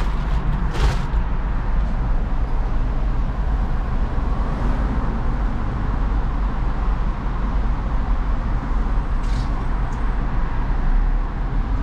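Car driving: steady engine and road rumble.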